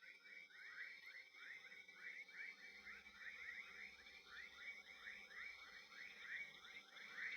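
Faint night chorus of frogs calling in rapid short notes, about four a second, over a steady high-pitched drone.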